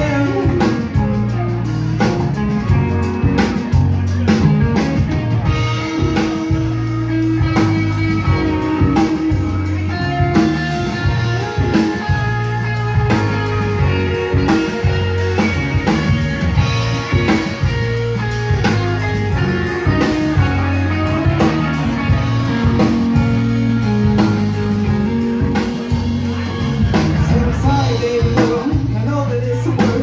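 Live rock band playing: two electric guitars, an electric bass and a drum kit, with steady drum hits under sustained guitar notes.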